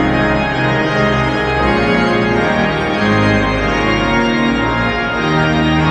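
Casavant pipe organ playing loud, full sustained chords over deep bass notes, the harmony changing every second or so.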